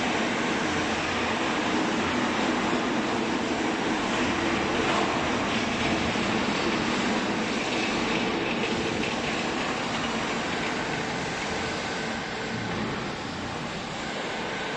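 Hydraulic used-clothing baler running: a steady mechanical noise with a low hum from its motor and hydraulic pump, easing slightly near the end.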